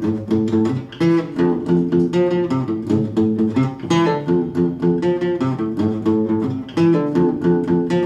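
Acoustic guitar played fingerpicked, quick single notes over held chords in a steady rhythm.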